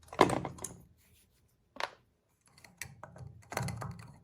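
Hands at work on small parts: a few short scraping and rubbing sounds, the first the loudest.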